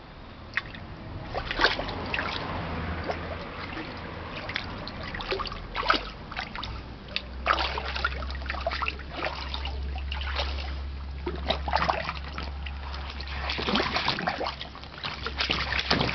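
Water splashing and sloshing in a small pool as a pit bull dog moves about and plays in it, uneven runs of splashing with a number of sharper single splashes.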